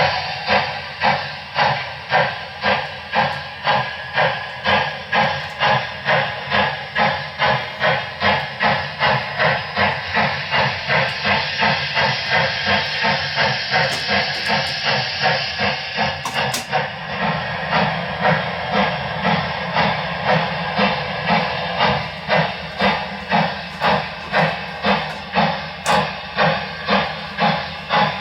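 Digital sound system of an HO-scale Broadway Limited Paragon 4 Southern Pacific GS-4 steam locomotive model playing a steam exhaust chuff, with steady, even chuffs a little under two a second as the locomotive runs.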